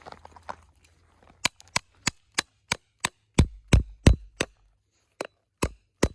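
Quick series of sharp wooden chopping strikes, about three a second, with a few heavier blows in the middle: a hatchet chopping firewood.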